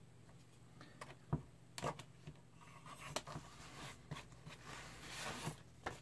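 Rotary cutter trimming the edge of a stack of folded printer paper along a ruler on a cutting mat. A few sharp knocks come about a second in as the ruler and cutter are handled, then soft rasping and rustling of paper and trimmed strips, strongest near the end.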